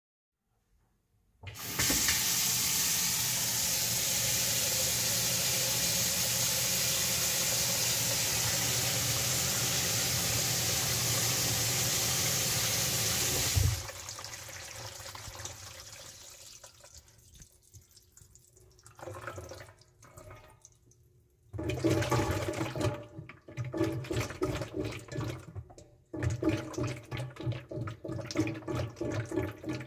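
Water draining through the plastic sink drain pipes and trap: a steady loud rush that stops suddenly about fourteen seconds in, then irregular gurgling in the pipes from about twenty seconds on.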